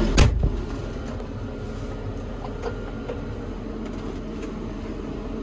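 Fendt 724 Vario tractor's six-cylinder diesel engine idling steadily, heard from inside the cab, with one sharp knock just after the start and a few faint clicks.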